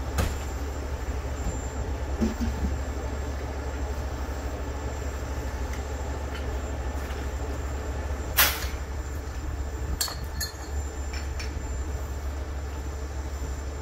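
Semi-truck's diesel engine running steadily with a low drone. About eight seconds in comes one sharp metal clank, followed by a few lighter clicks, as the tanker's valves and hose fittings are handled.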